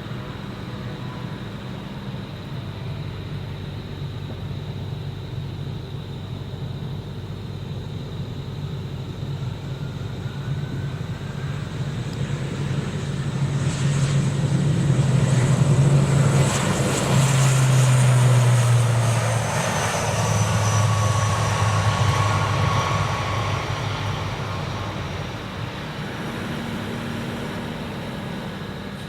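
Jet airliner passing. The engine noise builds to a peak about halfway through and then eases off, with a high whine that falls in pitch as it goes by.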